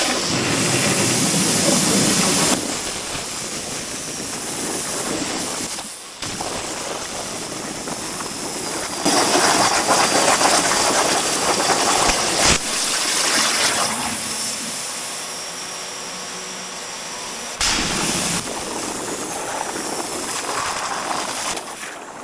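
CNC plasma cutter cutting diamond-plate steel over a water table: the arc's loud steady hiss starts abruptly, dips briefly about six seconds in, and swells louder in stretches as the torch cuts.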